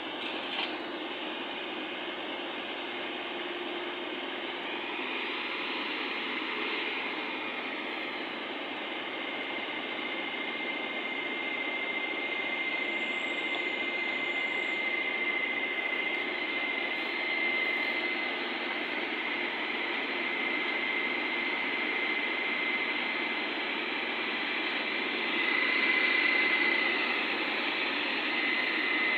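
SDLG 690F crawler excavator's diesel engine running steadily as the machine tracks down the tilted bed of a self-loader truck, with a steady high whine from about a third of the way in. The sound grows louder near the end.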